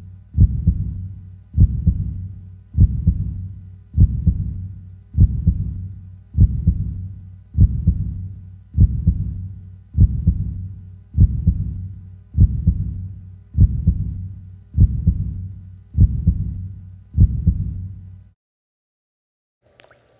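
Heartbeat sound effect: slow, deep lub-dub thumps about fifty times a minute, each beat loud with a short dying tail. It stops a couple of seconds before the end, and a brief higher sound begins just after.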